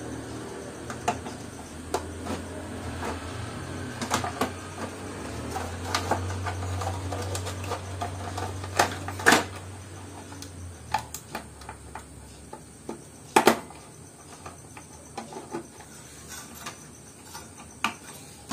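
Hands refitting an amplifier's circuit boards and aluminium heatsink into its metal chassis: scattered clicks and knocks of parts and metal being handled, the loudest two about nine and thirteen seconds in. A low hum comes in about four seconds in and fades about eleven seconds in.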